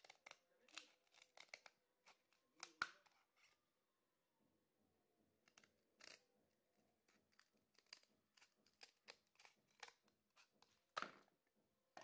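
Scissors snipping through a thin abrasive cut-off disc for stainless steel, cutting out a small disc in a run of irregular sharp snips and clicks. The loudest snips come about three seconds in and again near the end.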